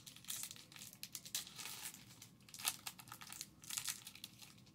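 Foil wrapper of a hockey card pack being torn open and crinkled, in a run of short crackly rustles.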